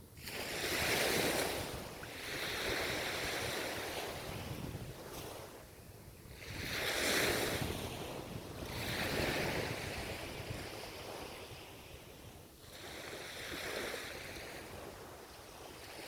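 Ocean waves breaking and washing up the shore, the surf swelling and fading in surges every few seconds, with some wind on the microphone.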